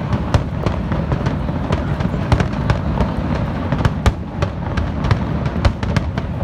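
Fireworks display: a rapid, irregular run of sharp bangs and crackles over a continuous low rumble.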